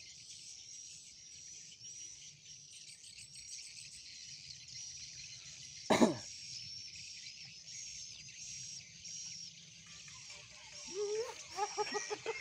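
Swiftlet lure call played back for a sound test: evenly repeated high chirps about every two-thirds of a second, over a thin high hiss. A single short thump cuts in about six seconds in.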